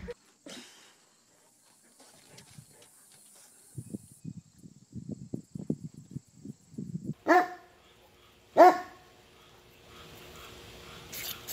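A dog gives two short, pitched barks about a second and a half apart. Before them come a few seconds of soft, irregular low knocks and scuffles.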